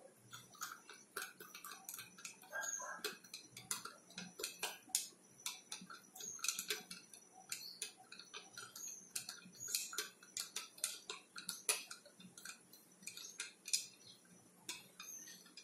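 A plastic spoon stirring salt into water in a glass tumbler, clicking and tapping against the glass in a quick, irregular run of light clicks, as the salt is worked in to dissolve.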